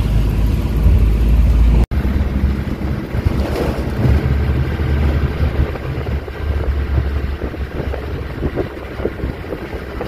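Wind buffeting the microphone over the low, steady rumble of a moving truck, with a sudden dropout about two seconds in.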